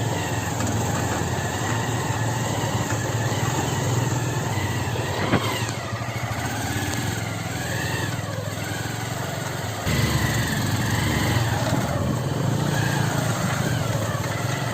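Motorcycle engine running steadily, with a sharp click about five seconds in; the engine gets louder about ten seconds in.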